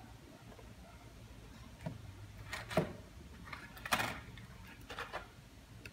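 Hands handling packaging on a table: a cardboard processor box and a clear plastic clamshell tray are set down and shifted. There are a handful of short rustles and knocks, the loudest near three and four seconds in.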